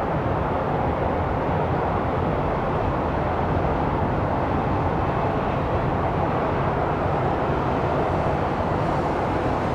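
Boeing 747-8 jet engine noise: a steady, even rumble with no change in level.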